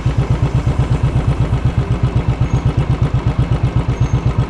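Motorcycle engine running with an even, low pulsing beat, about nine beats a second.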